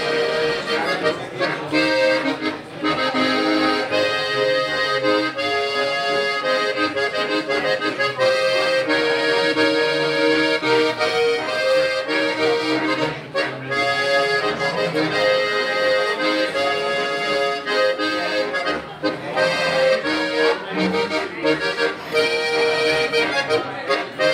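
Traditional dance music led by an accordion, with sustained chords and a melody over an evenly pulsing bass beat.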